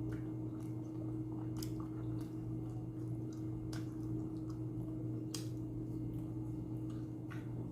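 Close-up wet mouth and chewing sounds of someone eating a chicken shawarma wrap: scattered soft clicks and squishes over a steady low hum.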